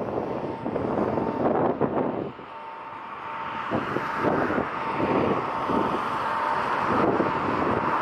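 Boeing 767-300 airliner on final approach, its twin turbofan engines giving a steady whine at one pitch that grows louder toward the end. Gusty wind buffets the microphone, heaviest in the first two seconds.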